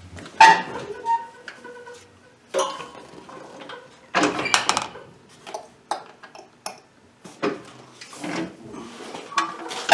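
Ride-on mower seat being swung down on its hinge over the control panel and handled: a series of separate knocks and clunks, the loudest about half a second in and around four seconds in.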